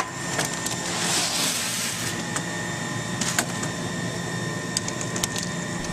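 Babyplast micro-injection molding machine running with a steady mechanical hum and whine. A short hiss comes about a second in, and scattered sharp clicks and taps come from the sprue separator's power plug and controls being handled.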